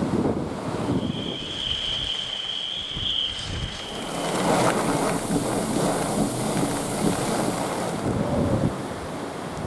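Gusty typhoon wind buffeting the microphone, with a hiss of driving rain that swells about halfway through. A single high, steady whistle sounds for about three seconds near the start.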